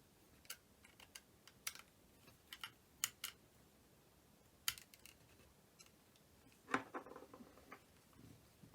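Faint, sparse light clicks and taps from the small plastic parts of a flip phone being handled during reassembly, with a brief quicker cluster of clicks and rattles about seven seconds in.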